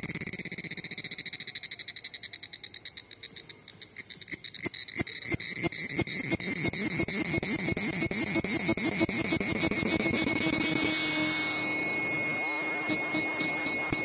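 Cicada calling at close range: a loud, high-pitched buzz that fades over the first few seconds, then starts again about four seconds in as quick pulses that speed up and merge into a steady drone.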